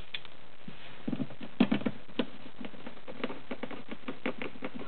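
Hand screwdriver and factory screw clicking and knocking against a plastic speaker pod as the screws are started into the soundbar: an irregular string of light clicks beginning about a second in, with a sharper cluster soon after.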